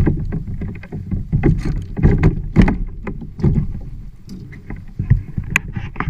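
Kayak on the water: irregular knocks and splashing of water against the hull, a few to each second.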